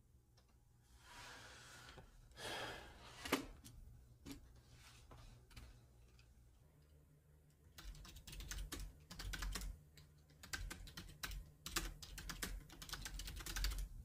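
Typing on a computer keyboard: a few soft rustles and scattered key clicks at first, then a run of rapid, steady keystrokes through the second half.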